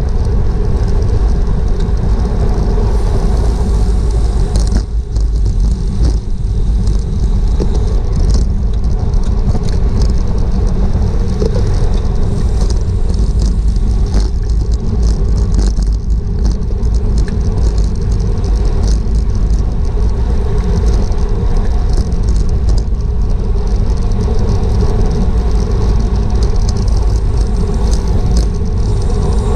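Steady, heavy wind rumble on a GoPro action camera riding with a racing bicycle at speed, with a fainter hiss and scattered light rattles above it.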